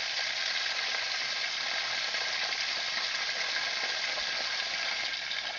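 Water running from an outdoor hose bib (sillcock) through a newly fitted vacuum breaker, a steady hiss of spraying water that cuts off abruptly at the end as the tap is shut.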